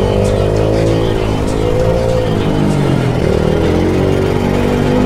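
Pitbike engines revving, rising and falling in pitch, mixed with background music with a steady beat.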